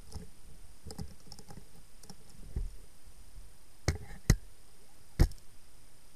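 Handling noise from fishing gear close to the camera: a few faint clicks, then three sharp knocks about a second apart.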